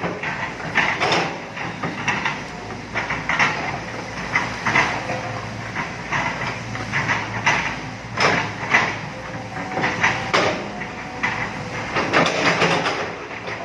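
Excavator at work: a steady diesel engine drone under frequent, irregular metal clanks and knocks.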